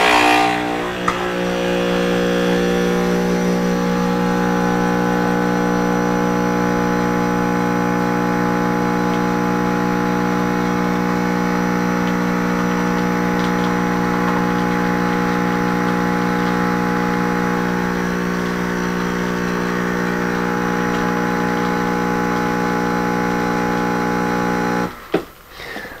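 Breville Nespresso Creatista Plus pump running steadily as it pulls an espresso shot, a steady, even hum that cuts off about a second before the end when the shot is done.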